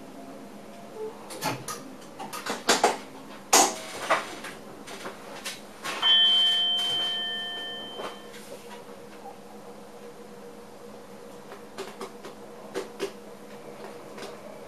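Clicks and knocks inside a train driver's cab, over a steady electrical hum. About six seconds in, a single chime-like tone rings out and fades over about two seconds.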